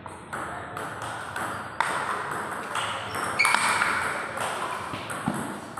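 Table tennis doubles rally: the ball clicking sharply off paddles and the table, about eight hits at an uneven pace of one to two a second.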